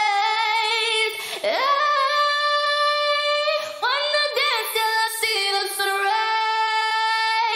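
Female a cappella vocal holding long sung notes, with short glides between them, through a Lexicon Vintage Plate reverb plugin on a vocal plate setting.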